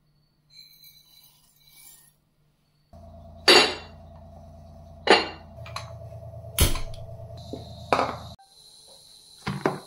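Kitchen utensils clinking against pots and dishes, five sharp knocks about a second and a half apart, over a steady hum. A high hiss sets in near the end.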